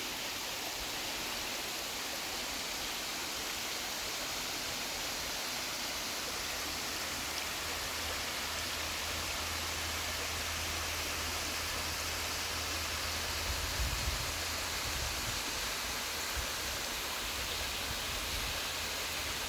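Waterfall running high with heavy flow: a loud, steady rush of falling water.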